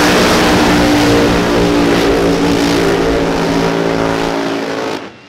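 Two supercharged V8 funny car engines running at high revs during a side-by-side burnout, tyres spinning. The sound is very loud and steady, then cuts off suddenly about five seconds in.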